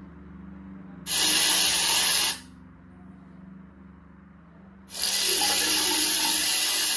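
Recorded sound of water running from a tap, played through a speaker: a burst of hiss lasting about a second, then running again steadily from about five seconds in.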